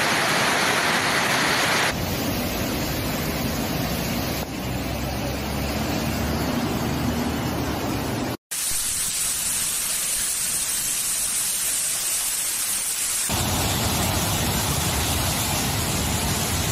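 Steady rushing of fast-flowing floodwater, a loud even roar of water noise. Its character changes abruptly several times, with a brief cut to silence about eight seconds in.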